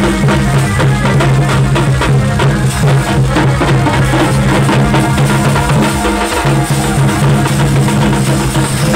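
Loud Chhau dance music: dense, fast drumming over a steady low held tone.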